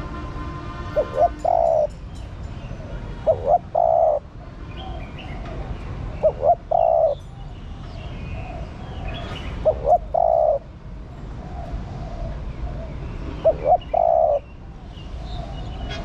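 Female spotted dove cooing: a loud three-note phrase, two short coos then a longer one, repeated five times about every three to four seconds, the call used to stir male doves to answer. Fainter cooing of other doves sounds between the phrases.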